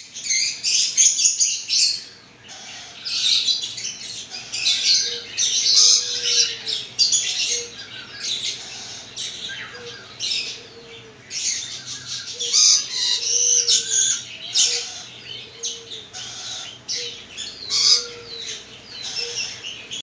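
Downy parrot chick making raspy, hissing begging calls in quick repeated bouts.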